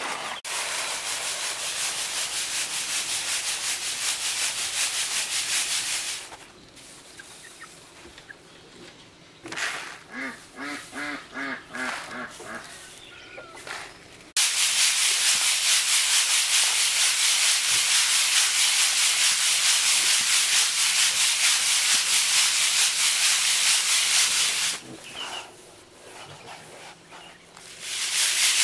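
Cracked corn grits rattling and hissing as they are shaken and sifted in a round bamboo sieve over a woven bamboo tray, in two long spells of steady shaking with a pause between. In the pause a farm fowl gives a quick run of about six short calls.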